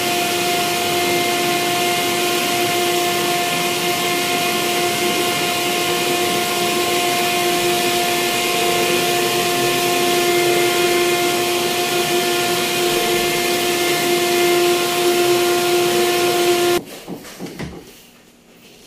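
Vacuum cleaner running steadily with a high whine as its hose-fed nozzle is worked over a mattress. The motor sound cuts off abruptly near the end, leaving faint knocks and shuffling.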